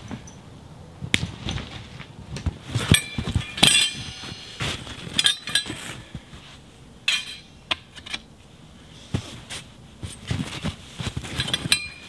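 Metal tent pole sections clinking and clanking as they are handled and fitted together. The sharp knocks come in scattered clusters, several of them leaving a short metallic ring.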